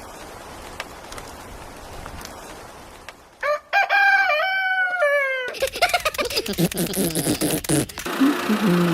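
A rooster crows loudly about three and a half seconds in, followed by more falling calls. A low, steady pulsing begins near the end.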